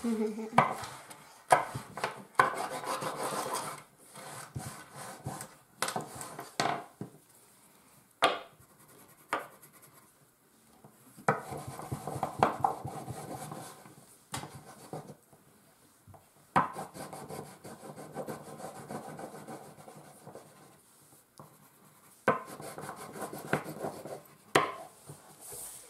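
Crayons scribbling and rubbing on paper on a table: a fistful of crayons bundled together and a single crayon, in stretches of quick back-and-forth strokes with short pauses and a few sharp taps.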